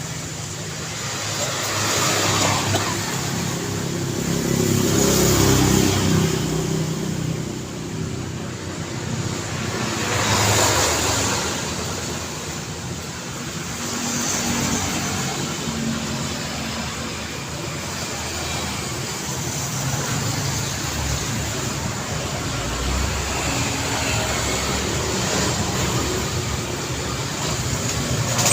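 City street traffic: a continuous wash of car engines and tyre noise, with single vehicles passing close by, the loudest about five seconds in and another about ten seconds in.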